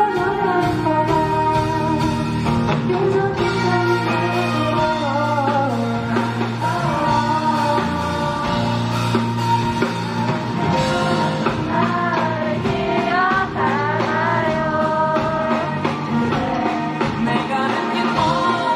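Live pop-rock band music with a male voice singing over electric bass and acoustic guitar.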